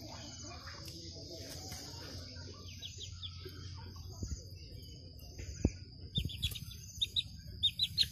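Short, high bird chirps, sparse at first and then coming thick and loud in the last two seconds, over a steady high-pitched insect drone. A couple of dull bumps come just before the chirping picks up.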